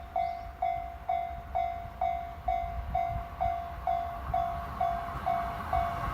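Japanese railway level crossing's electronic warning bell ringing steadily, about two strikes a second, each a sharp ding that fades away. Near the end the rumble of an approaching train rises beneath it.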